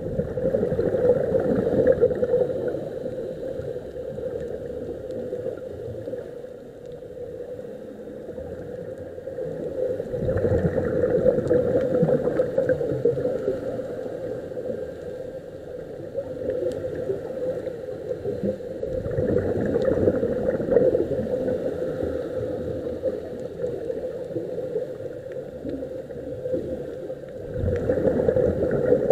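Muffled underwater sound picked up through a camera's waterproof housing: a steady hum, with gurgling swells of scuba regulator exhaust bubbles about every nine seconds as the divers breathe out.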